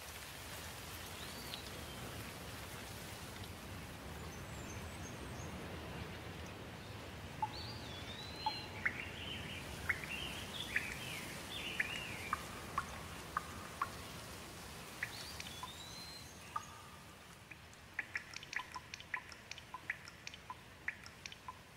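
Steady rain falling, with birds chirping over it now and then. Near the end the rain grows lighter and close, separate drops tick sharply.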